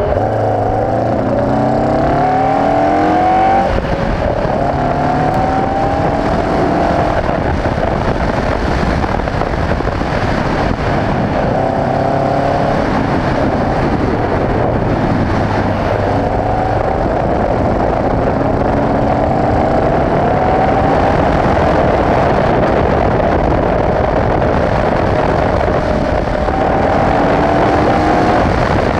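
Onboard sound of a Le Gallen LLG82 Group C car's Alfa Romeo 1490 cc flat-four boxer engine accelerating hard. Its pitch climbs and falls back at each gear change, several times over, with a rush of wind and road noise in the open cockpit.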